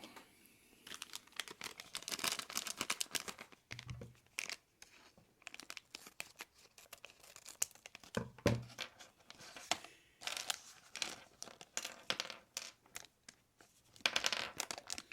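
A LEGO minifigure blind-bag pack being torn open and crinkled by hand, in a string of short, irregular rips and rustles.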